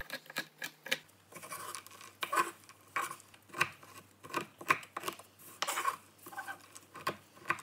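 Chef's knife chopping dark and white chocolate on a wooden cutting board: irregular sharp knocks of the blade striking the board, one to two a second with short pauses between.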